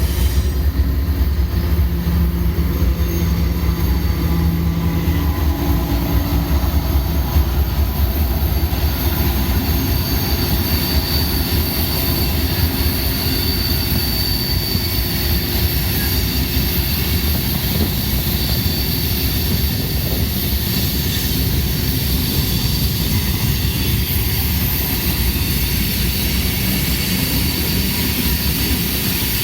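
Union Pacific freight train passing close by: a steady rumble of wheels rolling on the rails, with a faint high wheel squeal in the middle.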